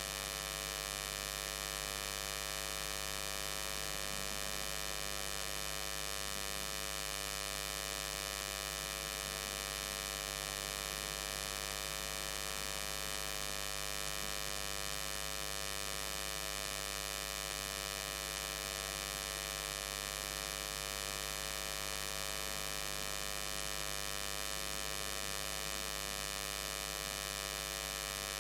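Steady electrical mains hum with a buzz: an unchanging low drone with a dense row of overtones reaching high up. The uploader blames this noise on interference from the inverter-powered lighting.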